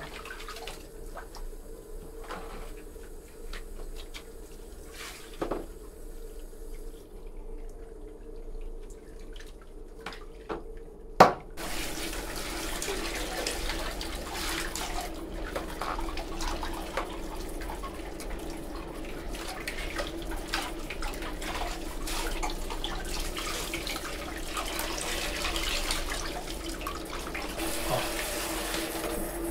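Hands sloshing water over a wet poodle's coat in a plastic basin, with small splashes and drips. About 11 seconds in there is one sharp knock, and then a handheld shower head sprays water steadily onto the dog and into the basin.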